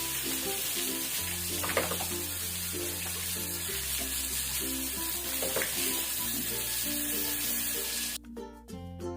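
Background music with a steady bass line and a repeating plucked chord pattern, over a steady hiss of running water that cuts off suddenly about eight seconds in.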